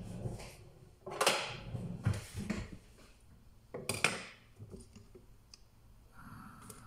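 Kitchen handling sounds: knocks and noisy clatters of utensils, a pan and bottles being moved on the counter and stove, the loudest about a second in and about four seconds in.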